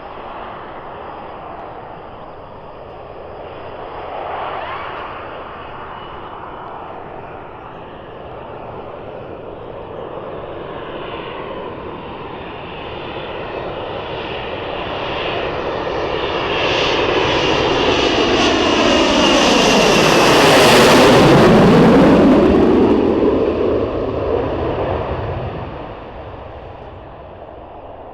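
Panavia Tornado IDS jet's twin RB199 turbofan engines on arrival, growing steadily louder to a loud whining peak about three-quarters of the way through, with tones sweeping down as it passes, then fading.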